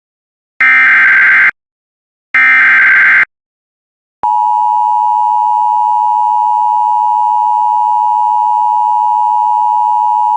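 Emergency Alert System severe thunderstorm warning alert: two warbling SAME digital header bursts, each about a second long and a second apart, then the steady two-tone EAS attention signal starts about four seconds in and holds.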